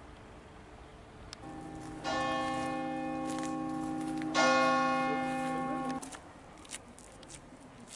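Church bell ringing: two strikes a little over two seconds apart, the second louder, each leaving a long ringing hum, until the sound cuts off abruptly about six seconds in.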